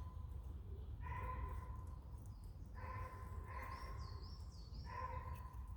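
An animal calling four times with short, evenly pitched barks, each about half a second long, with a bird whistling briefly near the end over a steady low background rumble.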